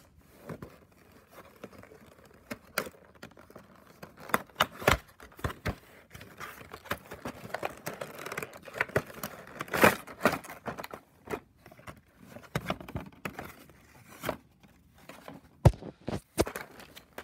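Packing tape on a cardboard toy box being cut with a small blade and the box pulled open: irregular scraping, tearing and crinkling, with scattered sharp clicks and one sharp click near the end.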